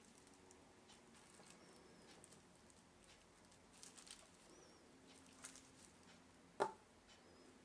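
Near silence: room tone with faint scattered clicks and taps, a few faint short high chirps, and one sharper click about six and a half seconds in.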